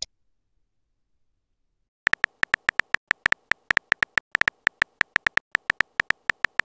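Phone keyboard typing sound effect: a quick, even run of short tonal clicks, about seven a second. It starts about two seconds in, after a silent gap.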